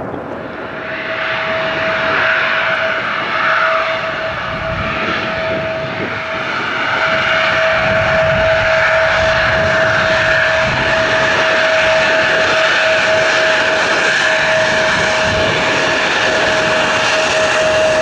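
Embraer 175 jet's twin General Electric CF34 turbofan engines running, with a steady high whine over a rushing hiss that grows louder about seven seconds in as the jet draws near, and wind rumbling on the microphone.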